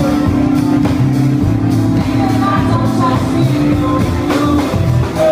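Live rock band playing loud: drum strikes, sustained low bass notes, electric guitar and a singing voice, with the sound of the room around it.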